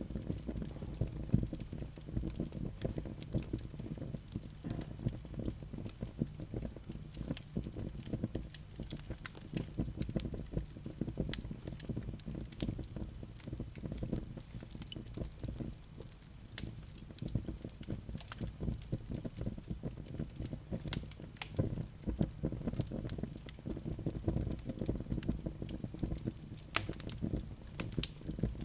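Wood fire in a fireplace crackling: dense small snaps throughout with a few louder pops, over a steady low noise of the burning.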